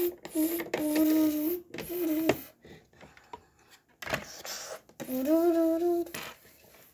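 A child humming a tune in held notes, one run of notes over the first couple of seconds and a shorter one about five seconds in, with a few sharp clicks in between.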